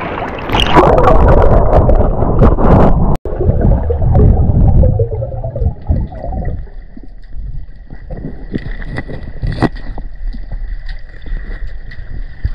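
Water splashing and sloshing around an action camera at the surface. After a sudden cut about three seconds in, the muffled sound of the camera underwater follows: gurgling with small scattered clicks over a faint steady high tone.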